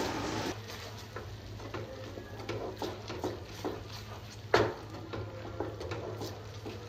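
Wooden spatula stirring thick white sauce in a nonstick frying pan, with repeated soft scrapes against the pan and one louder scrape about four and a half seconds in.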